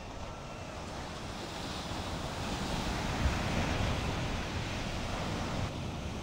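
Ocean surf: a wave surging and breaking on the shore, the rush building to its loudest about three seconds in, then easing off.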